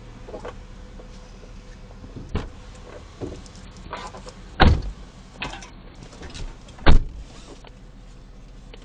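A few short knocks, about two and a half, four and a half and seven seconds in, the last the loudest, over a low steady hum.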